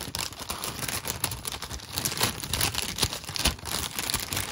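Crinkling of a foil-lined plastic snack packet as a hand rummages through the puffed corn snacks inside it: a steady run of small crackles and rustles.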